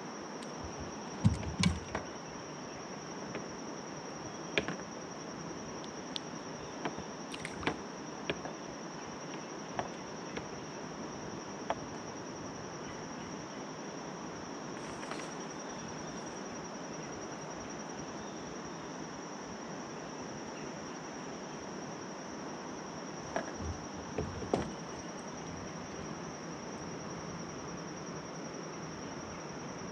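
Insects droning with one steady high-pitched tone, over a low hiss. A scattering of sharp clicks and knocks, the loudest about a second and a half in and again about three-quarters through.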